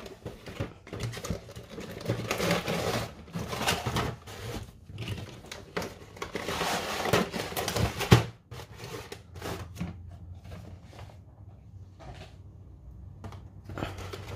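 Cardboard figure box being opened and clear plastic blister trays slid out and set down: irregular rustling, scraping and clicking of plastic and cardboard. Busiest in the first half, with one sharp click about eight seconds in, then quieter handling.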